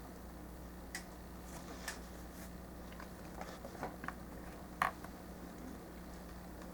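Plastic parts of a High Grade Gundam model kit being handled and pressed together: a few small clicks and snaps, the sharpest one about five seconds in. A faint steady hum runs underneath.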